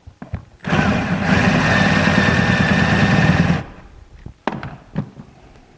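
Power drill spinning a 7/8-inch wood spade bit into a rifle stock, boring a shallow recess for a T-nut. It runs steadily for about three seconds, starting about half a second in and cutting off abruptly, and a few light knocks follow.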